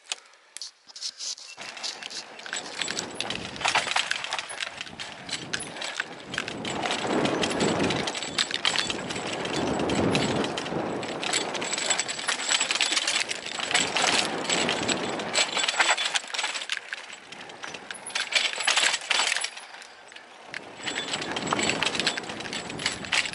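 Electric mountain bike riding down a dirt forest trail: tyres crunching over dirt and rocks, with a constant clatter of chain and frame rattling. It is quieter for the first second or so and dips again near the end.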